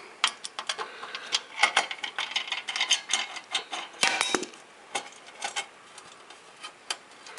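Irregular small metallic clicks and taps of a screwdriver and screws as the screws holding an Xbox 360 slim's motherboard are undone, with a few louder knocks about four and five seconds in.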